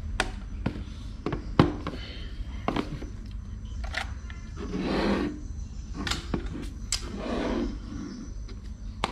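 Handling noise of metal spinning reels and a digital scale being picked up and set down on a tabletop: a string of sharp clicks and knocks, the loudest about a second and a half in, over a steady low hum, with two softer swells of noise around five and seven and a half seconds in.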